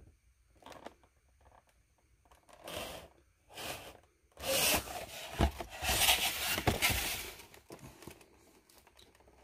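Cardboard product boxes being handled: a few brief rubs, then about three seconds of cardboard scraping and sliding against cardboard, with a couple of low knocks as the boxes are set down.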